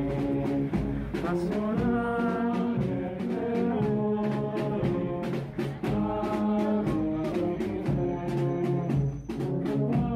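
Brass band music: held notes and chords from brass instruments, moving on every second or so.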